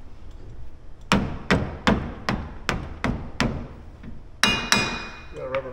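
Hammer blows tapping a wheel hub onto its spindle: seven evenly spaced strikes, about two and a half a second, then two sharp metal clinks that ring briefly.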